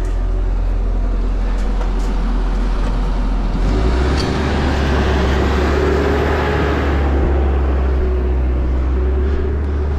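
Excavator engine running steadily, then revving up about three and a half seconds in, with louder mechanical noise over the engine note as the machine works.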